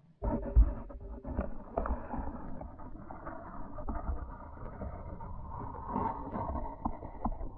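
Muffled underwater noise picked up by a submerged camera in a pond: a continuous low rushing with scattered knocks and clicks, the loudest knock about half a second in.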